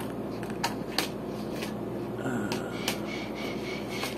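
Steady low hum of room noise with a handful of short, sharp clicks and taps from handling, the loudest about a second in.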